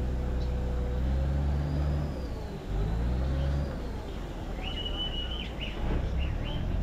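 Chao Phraya Express Boat's diesel engine running underway with a steady low drone. Its note dips and then picks up again about two and a half seconds in. A few short high whistles sound near the end.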